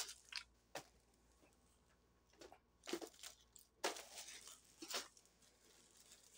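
Faint, scattered crinkling of plastic packaging and a plastic bag as the packets are picked up and moved by hand. The rustles come in short spells with quiet gaps, the clearest about three and four seconds in.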